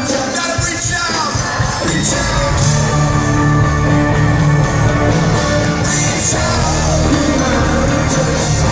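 Live pop-rock band playing in an arena: electric guitars, bass, drums and keyboards with sung vocals, heard from the crowd.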